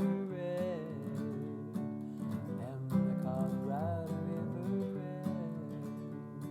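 Song music: strummed acoustic guitar with a wavering melody line gliding above it.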